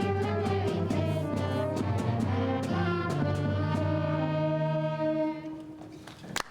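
School band playing with brass to the fore over a regular percussion beat, closing on a long held final chord that dies away about five seconds in.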